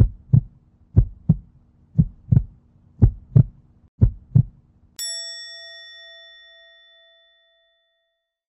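Heartbeat sound effect: five low double thumps, about one pair a second, over a faint hum. It is followed about five seconds in by a single bell-like ding that rings out for a few seconds.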